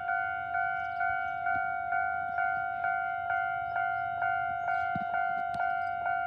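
Japanese railway level crossing's electronic warning bell ringing, a ding repeated a little over twice a second, each stroke fading before the next: the signal that a train is approaching and the barriers are down.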